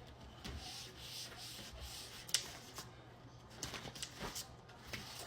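Hands rubbing and pressing a paper poster down onto freshly hot-glued board: soft paper rubbing, with a sharp tick about halfway through and a few light taps near the end.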